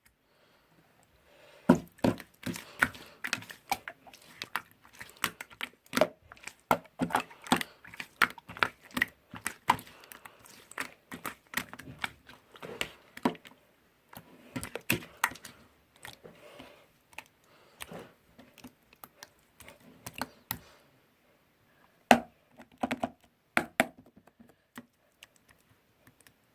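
Irregular series of sharp clicks and taps, like keys being typed or small objects handled, dense for most of the stretch, with a short pause and a few more clicks near the end.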